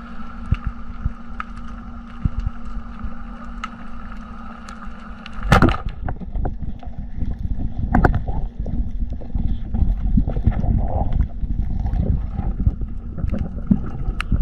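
Underwater ambience picked up by a submerged camera. A steady low hum with two held tones runs for the first five seconds or so. A loud knock follows, and then a low rumble with many scattered clicks and knocks.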